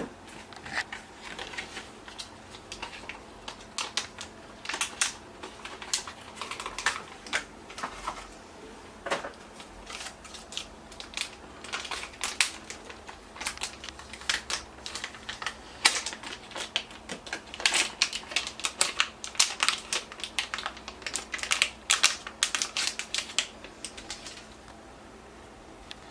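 Irregular sharp clicking and crinkling as the packaging of a Drevo X1 Pro SSD is handled and opened, dying away about two seconds before the end.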